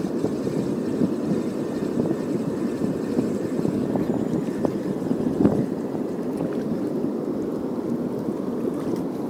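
Wind buffeting the microphone: a steady low rushing that flutters quickly, with a few faint clicks.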